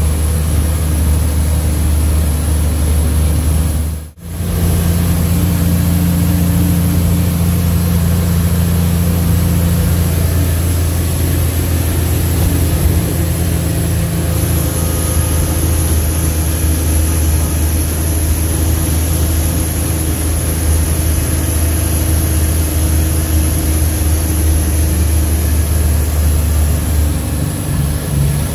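Leyland truck's 411 diesel engine running steadily while the truck drives, heard from inside the cab as a low, even drone. The sound cuts out for a moment about four seconds in.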